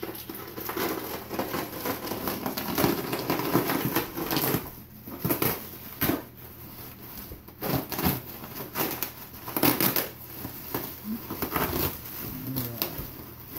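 Plastic bubble wrap being handled and pulled open by hand, crinkling and rustling with a steady run of crackles and several louder crunches.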